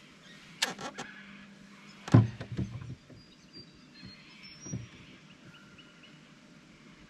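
Knocks and clicks of gear being handled aboard an aluminium fishing boat. There are a few sharp clicks, then a heavy knock about two seconds in with a short run of quicker knocks after it, and a single fainter knock near five seconds.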